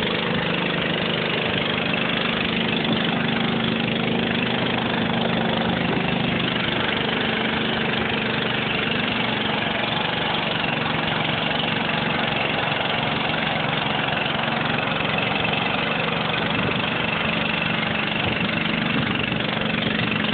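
John Deere garden tractor's engine running steadily under load as it drags a weight-transfer sled at a tractor pull.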